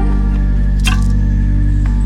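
Background music: sustained chords with a few sharp percussive hits.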